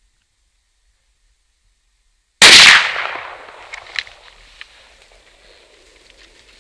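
A single rifle shot, very loud and sudden, about two and a half seconds in, its report dying away over about a second; a few faint clicks follow.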